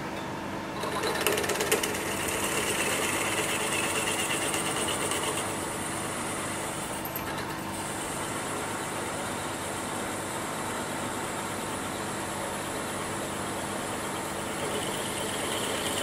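A quarter-inch drill bit cutting into a cast rocker arm on a milling machine, over the machine's steady motor hum. The cut is loudest over the first few seconds, with a high squeal, then runs steadier, and swells slightly near the end as the bit breaks through.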